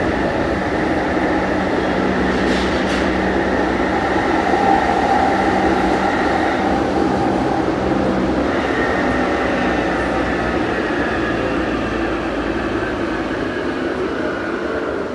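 A London Underground 1996 Tube Stock train on the Jubilee Line running in tunnel, heard from inside the carriage: a steady, loud rumble of wheels and tunnel noise with a steady whine over it.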